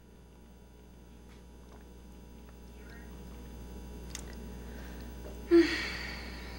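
Steady electrical hum of room tone, rising as the sound fades in. About five and a half seconds in, a person's short sigh: a brief voiced sound followed by a breathy exhale that fades over about a second.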